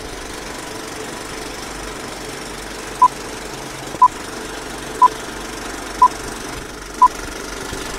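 Short electronic beeps, all at the same pitch, one each second starting about three seconds in, over a steady noisy background.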